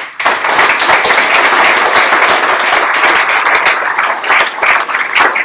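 Audience applause: many people clapping, starting suddenly and holding steady.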